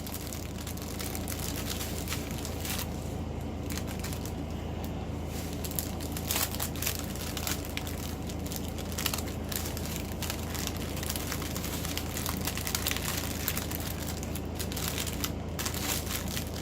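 Plastic packaging crinkling and rustling as small bags of diamond-painting drills are handled, with irregular light clicks throughout over a steady low hum.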